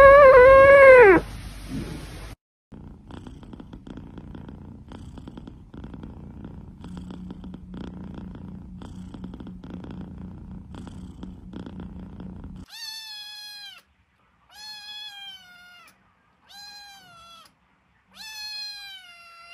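A cat meows loudly once, then a cat purrs steadily for about ten seconds. Then a kitten gives four high-pitched mews, about two seconds apart.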